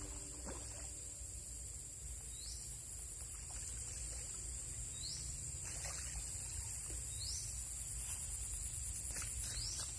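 Outdoor natural ambience: a steady high-pitched insect drone, with a short rising chirp repeating about every two and a half seconds and a few faint clicks.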